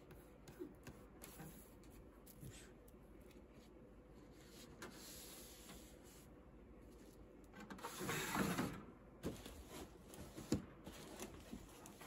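Dry timothy hay rustling and crackling as a hand scoops it out of a bird cage's plastic bottom tray, loudest for about a second and a half near the end, with light clicks and knocks of the plastic cage parts around it.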